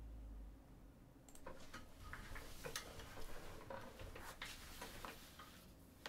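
A quiet, irregular run of light clicks and taps lasting about four seconds, starting a little over a second in. A low hum stops shortly after the start.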